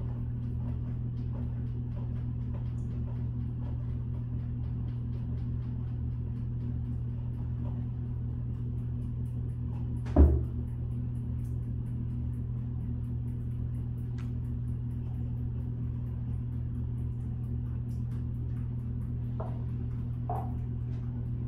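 Steady low electrical hum in a small tiled room, with one sharp knock about halfway through and two light taps near the end, from high-heeled pumps knocking on the tile floor.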